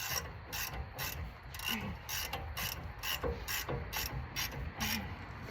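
Hand ratchet wrench clicking in short strokes, about two to three clicks a second, while a stiff brake bolt that the owner suspects is cross-threaded is worked loose and retightened.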